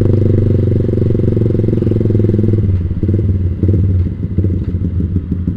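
Yamaha Vixion's single-cylinder 150 cc engine running through a Proliner TR1 short aftermarket exhaust, with a steady note while riding. A little past halfway through, the note breaks into a choppier, uneven, slightly quieter sound.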